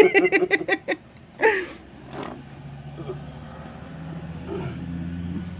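Laughter for about a second, then the low steady hum of a car engine running, growing slowly louder toward the end.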